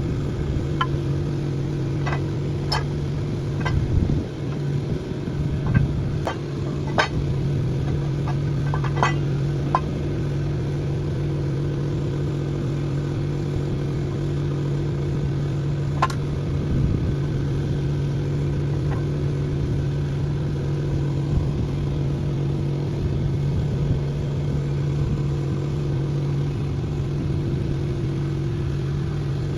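An engine running steadily at idle, with several sharp clicks or taps in the first ten seconds and one more past the middle.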